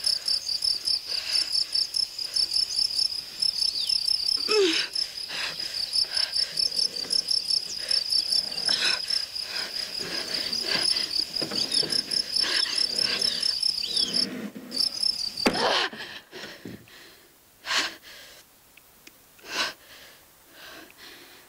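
Cricket chirping in a fast, steady pulsing trill that stops about fifteen seconds in. A few short, sharp sounds follow.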